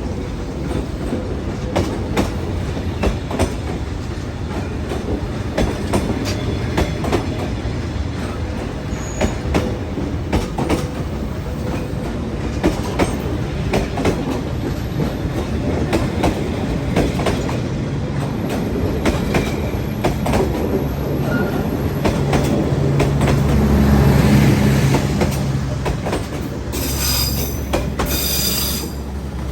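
Train on the Vietnamese railway rolling slowly out of a station, its wheels clicking irregularly over the rail joints above a low rumble. A deeper steady hum swells about three quarters of the way through, and a brief high wheel squeal follows near the end.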